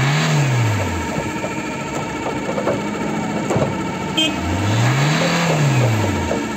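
Opel Combo C's Z13DT 1.3 four-cylinder turbodiesel running, heard from inside the cab. It is blipped twice, near the start and again about halfway through, rising and falling in pitch each time, and idles steadily in between.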